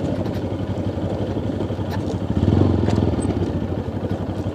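Motorcycle engine running while riding, with an even pulsing note that swells louder for about a second midway.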